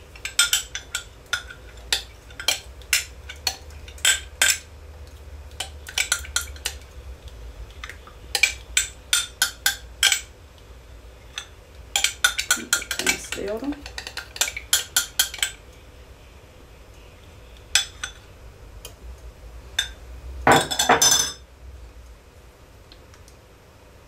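A metal spoon clinks and scrapes against a glass measuring jug in quick runs of taps as the last of the potassium hydroxide–glycerin solution is scraped out into the oils. Near the end comes a louder clatter of glass and metal.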